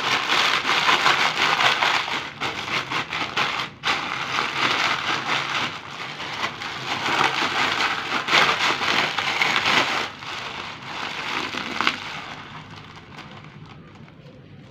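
Dry egg noodles being crushed by hand inside their plastic packet: continuous crinkling of the wrapper and crackling of the brittle noodle block breaking up, fading after about twelve seconds.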